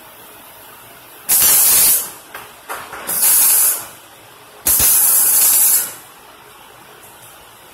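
MIG welder arc laying three short weld bursts, each a loud hissing sizzle lasting about a second, with a few small crackles between the first two.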